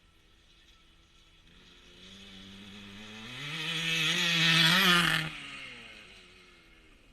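1977 Honda CR125 Elsinore's single-cylinder two-stroke engine, on its newly fitted HPI ignition, as the bike rides past: the engine grows louder for a few seconds, is loudest about five seconds in, then drops in pitch and fades away.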